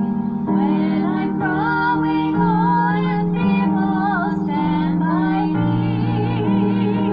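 A hymn: a woman's voice singing with vibrato over sustained keyboard chords that change every second or so.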